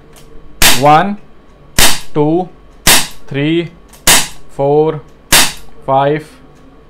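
Crosman SNR357 CO2 BB revolver firing five shots, one about every 1.2 seconds, each a sharp crack.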